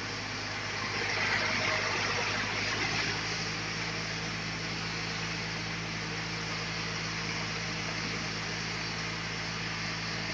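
Sawmill machinery running steadily with a low hum under a broad hiss; the hiss swells about a second in and eases off by three seconds.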